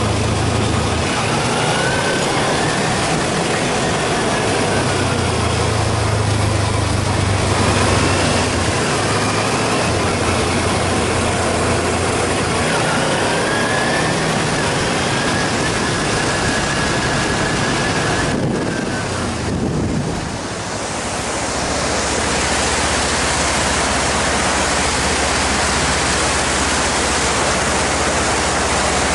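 Kawasaki Ninja 250 motorcycle engine running under way, its note rising and falling with the throttle, over steady wind rush. About two-thirds of the way through it gives way to the steady rush of river rapids.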